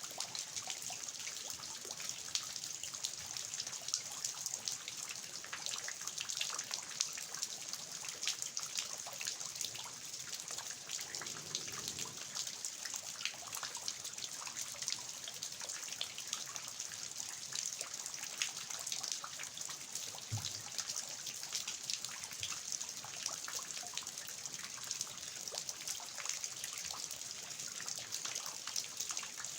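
Steady rain falling on a garden, with dense patter and water dripping and trickling from the roof eaves.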